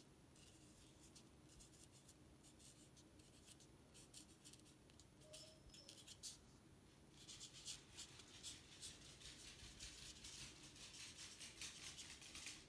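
Fine-tip black permanent marker writing on paper: faint scratching strokes, coming thicker and faster from about halfway through.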